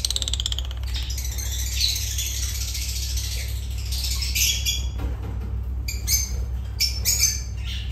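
Lovebirds chattering and squawking: a dense high twittering with several sharper squawks in the second half, over a steady low hum.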